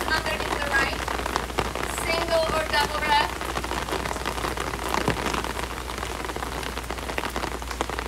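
Rain falling steadily, with individual drops ticking sharply close to the microphone.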